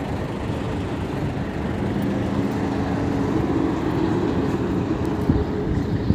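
Heavy truck engine noise: a steady low rumble, with a humming drone that swells from about two seconds in and fades near the end.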